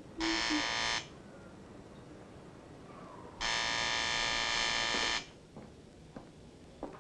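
Electric doorbell buzzer sounding twice: a buzz of under a second, then, after a pause of about two and a half seconds, a longer buzz of nearly two seconds. It signals a caller ringing at the front door.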